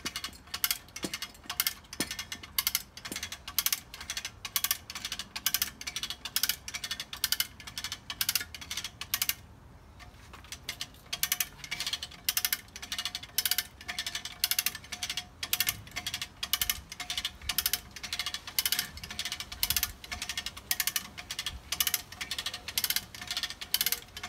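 4000 kg hand winch (cable puller) being pumped by its lever, its pawl ratcheting in a steady run of sharp clicks, about two or three a second, as it hauls a vehicle. There is a short break in the clicking about ten seconds in.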